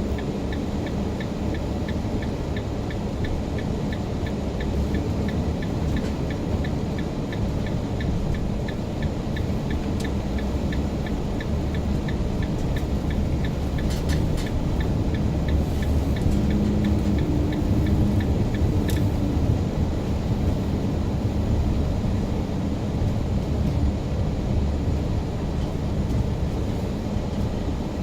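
Car driving, with a steady low rumble of engine and road noise. A regular ticking about twice a second runs until roughly two-thirds through and then stops, with a few sharp clicks in the middle.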